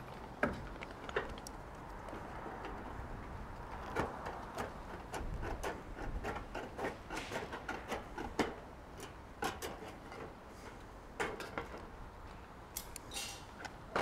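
Aviation snips making irregular short clipping cuts in thin steel barge-capping flashing, each cut a sharp click or snap, with the sheet metal clinking as it is bent and handled.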